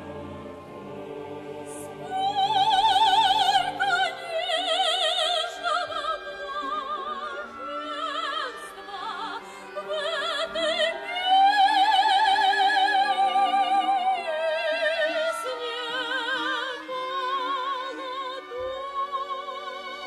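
Operatic soprano singing with wide vibrato over a symphony orchestra, entering about two seconds in; the long held high notes are the loudest.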